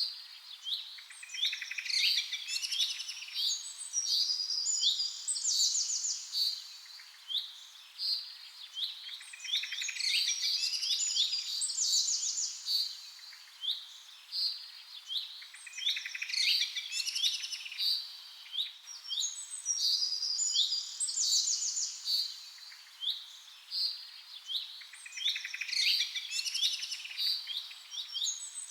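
Small birds chirping and trilling in quick high phrases; the same passage of song repeats about every six to seven seconds, as a looped birdsong recording does.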